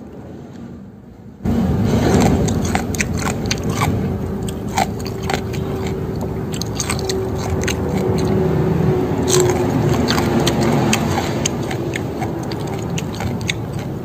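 Close-up chewing of crunchy pounded water spinach salad: many wet crunches and mouth clicks. It starts abruptly about a second and a half in after a quieter stretch, with a steady hum underneath through the middle.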